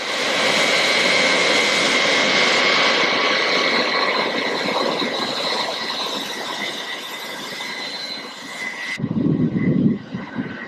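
Turbofan engines of an OC-135B jet taxiing close by, a steady loud running noise with a high whine. About nine seconds in the sound changes abruptly to a lower, more uneven rumble.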